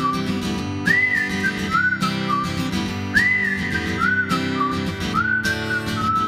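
Background music: a whistled melody over acoustic guitar, the same short whistled phrase coming round about every two seconds.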